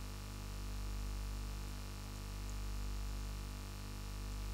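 Steady low electrical mains hum from a public-address system, swelling and fading slowly about every two seconds.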